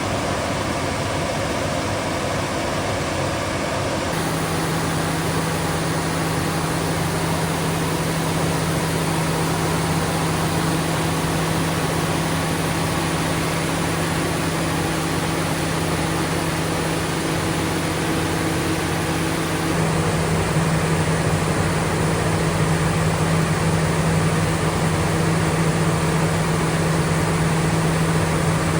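Caterpillar C27 V12 diesel generator set running steadily under test, a continuous engine and fan noise. Its steady hum comes in about four seconds in and grows louder about two-thirds of the way through.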